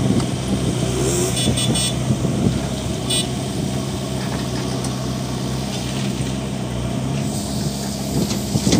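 JCB 3DX backhoe loader's diesel engine running steadily at working speed as the backhoe arm swings back and reaches down to dig. A few short high-pitched metallic clatters come about a second and a half in and once more at about three seconds.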